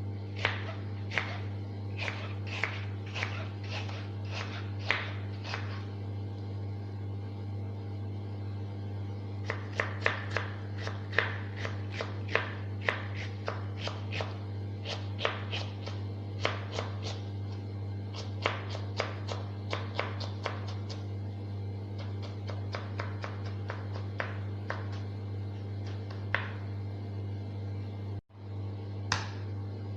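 Irregular sharp taps and clicks of utensils at work in the kitchen, in clusters of two or three a second, over a steady low electrical hum.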